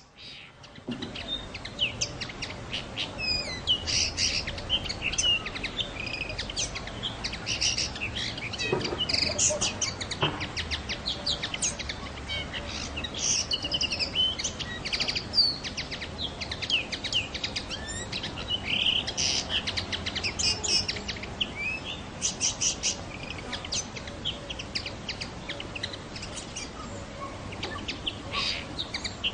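Male common linnet singing: a fast, continuous twittering of high chirps, trills and short whistles, starting about a second in.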